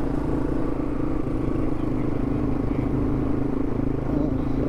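Yamaha TW200's single-cylinder four-stroke engine running steadily.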